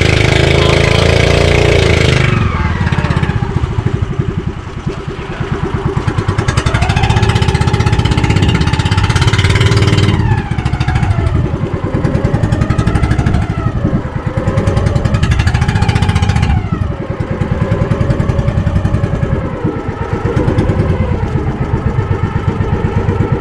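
Motor outrigger boat's (bangka) engine running under way, its speed rising and falling several times.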